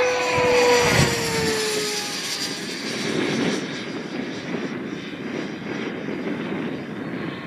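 Electric ducted fan of an HSD F-16 foam RC jet whining on a fast pass overhead. The whine is loudest in the first second, then drops in pitch as the jet goes by, leaving a rushing noise that slowly fades.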